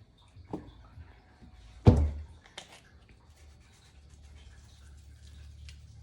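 Seasoning containers handled on a kitchen counter: one sharp knock about two seconds in, as of a container set down, with a few lighter taps and clicks, over a low steady hum.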